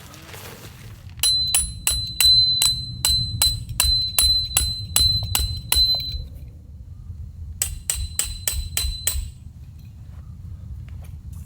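A hammer driving a metal tent stake: a run of about fourteen quick, ringing metallic blows, about three a second, then a pause and about six more.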